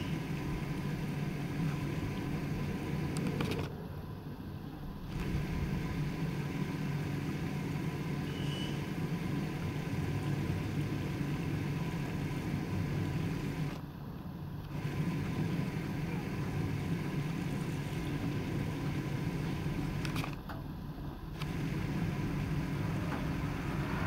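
Steady low background rumble, like distant road traffic, that drops quieter three times for about a second each. A faint short high chirp sounds about eight and a half seconds in.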